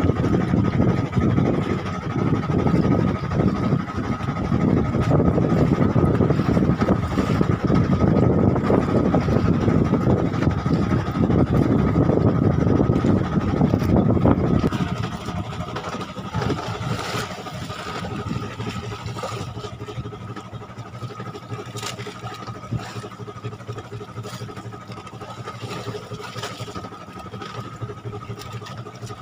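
Outrigger fishing boat's engine running steadily with a constant whine, loud for about the first half, then noticeably quieter.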